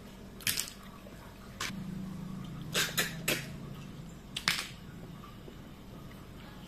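Eating by hand: several short, sharp sucking and smacking sounds at the mouth as snail meat is sucked out of siput sedut shells, with a low hum through the middle.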